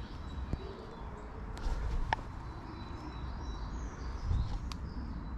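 Outdoor ambience: faint bird calls over a steady low rumble of wind, with a few light clicks.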